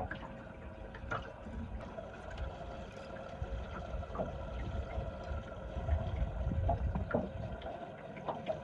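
Water gurgling and lapping around a small fishing boat, over an uneven low rumble, with a faint steady hum throughout.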